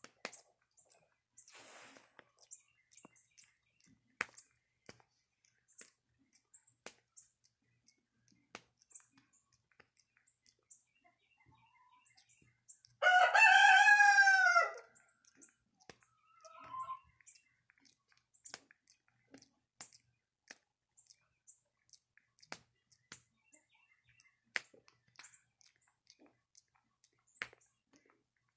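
A rooster crows once, about halfway through, a single crow of under two seconds, followed shortly by a short fainter call. Around it, faint scattered clicks and rustles come from a long-tailed macaque picking through a person's hair as it grooms her.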